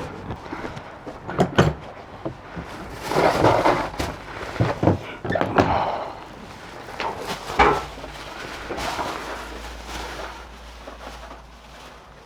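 Several sharp thuds and knocks, with bursts of rustling between them, from a door and bags being handled.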